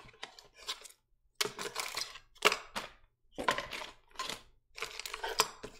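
Small plastic zip bags crinkling and the little parts inside them clicking as hands rummage through a cardboard box, in a string of short, uneven bursts.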